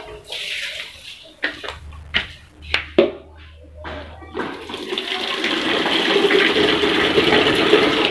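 A few sharp knocks and sandal footsteps on wet concrete, then about four and a half seconds in water from a wall tap starts running steadily into a bucket, growing louder.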